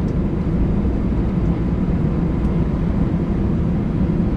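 Steady low rumble of aircraft noise inside an Airbus A319 passenger cabin, even throughout.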